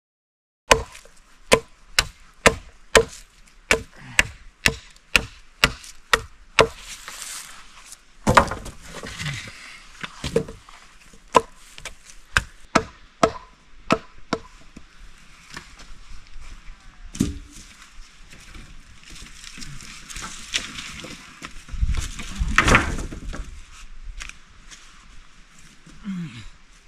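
Blade chopping on wood: a steady run of sharp chops about two a second for the first several seconds, then slower, irregular chops with some clatter in between and one louder knock near the end.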